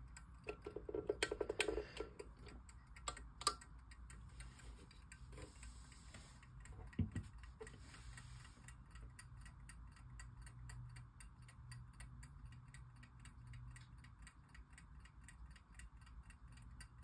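1901 Waterbury single-bell wind-up alarm clock ticking steadily, about five ticks a second, its movement running. A few louder knocks and a quick run of clicks in the first seconds come from the clock being handled and set down.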